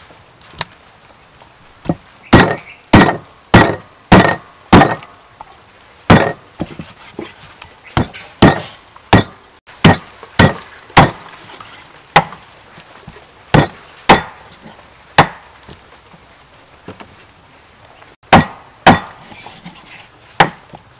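A cleaver chops through a raw duck's bones and meat onto a wooden chopping block: about twenty sharp, hard strikes at an uneven pace, with a pause of a few seconds near the end.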